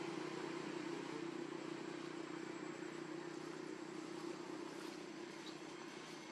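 Steady engine hum that slowly fades, over a background hiss.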